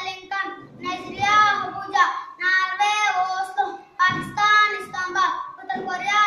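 A boy singing a song solo, in phrases of held notes with short breaks for breath.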